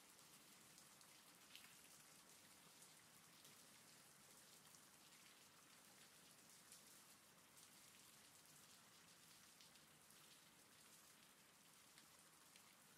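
Faint steady rain: a soft even hiss with scattered ticks of single drops.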